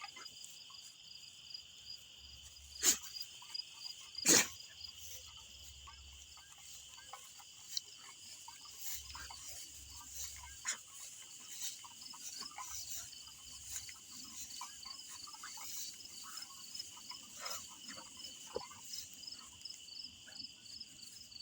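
A steady night chorus of insects: a continuous high drone with a fast, rhythmic chirping pulsing over it. Two sharp clicks come about three and four seconds in, with scattered faint ticks and rustles throughout.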